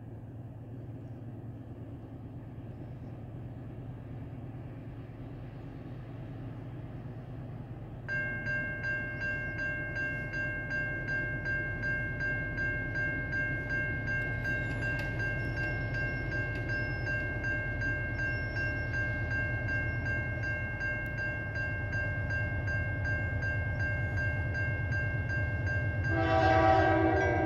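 Nathan K3L five-chime air horn on a CN C44-9WL diesel locomotive sounding one long steady chord that begins about eight seconds in and holds to the end, swelling louder and rougher near the end. Before it, only the low rumble of the approaching train.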